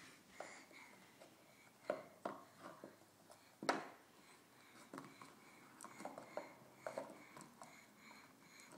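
Light knocks and taps of toy blocks being handled and set down on a hardwood floor, a scattering of them, the loudest a little under four seconds in.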